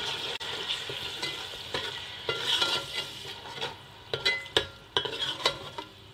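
A steel spoon scrapes and clinks against a metal cooking pot, stirring a thick onion, yogurt and tomato paste that sizzles in hot oil. The paste has just gone into the oil and is being fried. One strike about four and a half seconds in rings briefly.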